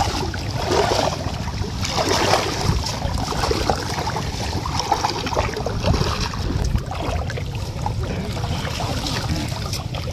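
Water splashing and sloshing in irregular bursts as a fine-mesh net is hauled and gathered by hand through shallow river water, over a steady low rumble.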